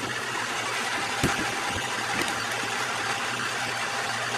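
1952 Logan 920 metal lathe running, spinning a bark-covered hemlock log in its chuck before any cut is taken: a steady running noise over a low hum, with a light knock about a second in.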